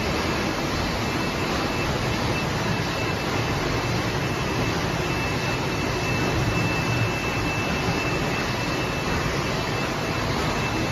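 Water bottling line machinery running: a steady, even mechanical noise of conveyors, cap elevator and filling machine, with a faint steady high whine.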